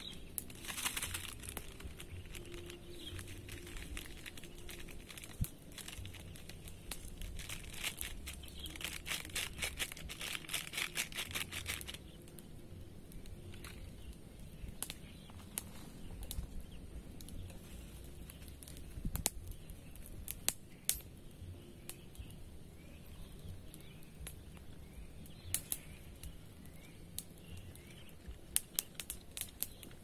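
Crinkling and rustling with many sharp clicks, dense for about the first twelve seconds, then sparser and scattered.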